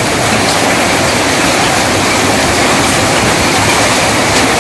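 Steady, loud roar of heavy rain with gusty wind.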